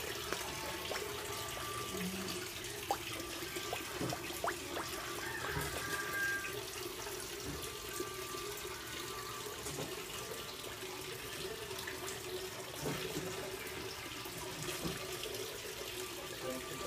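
Steady rush of running water in a koi pond, with a few faint clicks over it.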